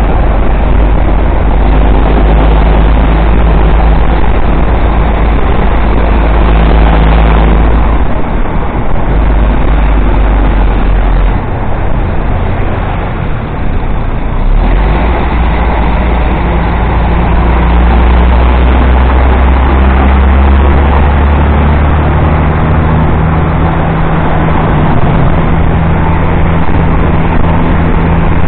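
Road noise heard from a moving motorcycle: its engine running steadily under the rider, with wind and tyre noise rushing over the microphone, and a bus's engine close by in the traffic. The low engine hum eases for a few seconds near the middle, then comes back strongly.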